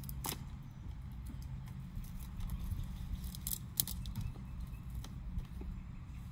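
Wrapper layers of an LOL Surprise ball being peeled and crinkled off by hand, heard as a few short rustles and clicks over a steady low rumble.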